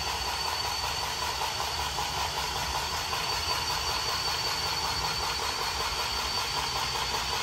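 Cordless battery-powered grease gun running steadily, its motor whining as it pumps grease into the fifth wheel's grease fitting.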